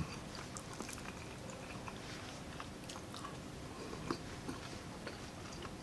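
Close-miked chewing of a mouthful of baked bone marrow, with scattered small mouth clicks and one slightly louder click about four seconds in.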